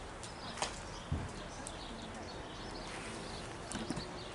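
Steady outdoor background noise with faint bird chirps and a few isolated sharp knocks, one about half a second in and another about a second in, with smaller taps near the end.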